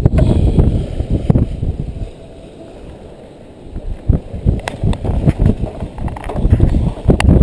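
Wind buffeting the microphone: an uneven low rumble that dies down about two seconds in and picks up again about four seconds in, with a few sharp knocks.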